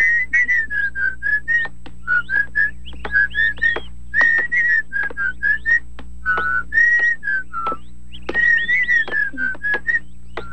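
A lively tune whistled in short, quick notes with a few brief pauses, over a faint steady hum.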